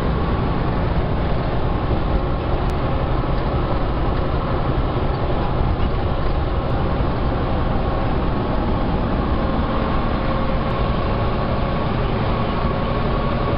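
Steady engine drone and road noise inside an 18-wheeler's cab while cruising at highway speed.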